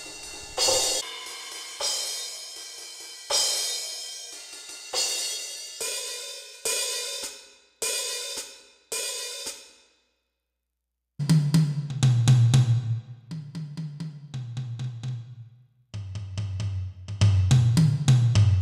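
Crash cymbal samples from a Donner DED-200X electronic drum kit, struck about nine times, each left to ring out, showing that a harder hit on the dual-zone cymbal pad triggers the crash sound. After a second of silence, fast drum hits run around the kit, stepping down in pitch toward the low toms.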